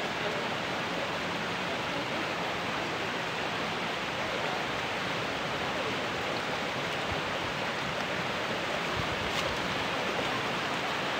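Steady rush of stream water pouring over low rock cascades.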